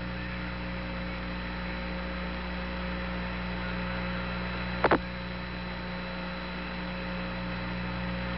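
Steady electrical hum and hiss of the Apollo 11 lunar-surface radio transmission in a pause between words, with a brief sharp double click about five seconds in.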